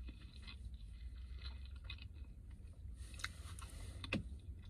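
A person chewing a bite of belyash, a soft fried meat-filled pastry, with the mouth closed: small wet mouth clicks over a low steady hum, with one sharper click about four seconds in.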